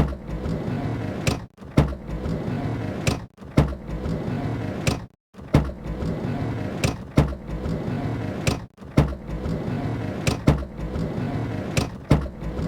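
Van sliding door rolled open and shut several times: each time a rumble of the rollers running along the track, ending in a sharp clunk as the door latches or hits its stop.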